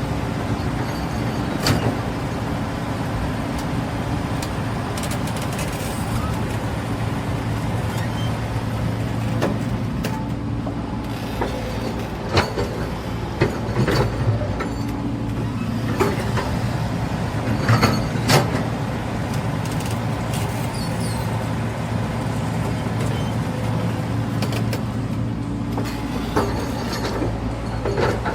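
Caterpillar 395 hydraulic excavator's diesel engine running steadily under load, with occasional sharp metallic clanks from the machine's bucket or tracks.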